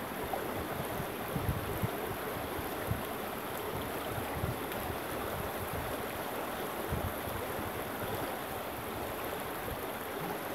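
Shallow creek water rushing and rippling over stones in a steady wash, with irregular low rumbles underneath.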